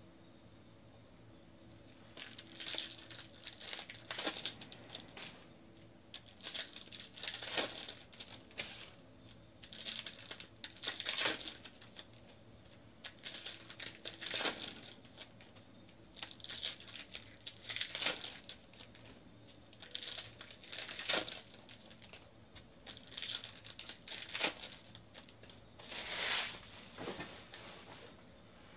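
Bowman baseball card pack wrappers being torn open and crinkled by hand, pack after pack. A burst of crinkling and tearing comes about every three seconds, starting about two seconds in.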